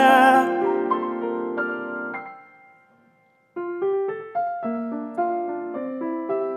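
Piano accompaniment, the choral-arrangement part of the song: a sung line ends just after the start, and a held piano chord fades away to near silence. About three and a half seconds in, the piano starts again with a moving pattern of chord notes.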